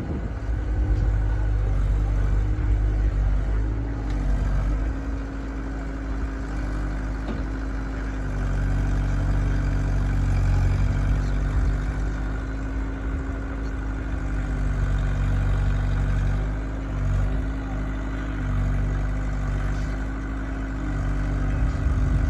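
Heavy diesel engine of a backhoe loader or tractor running steadily, its loudness rising and falling several times.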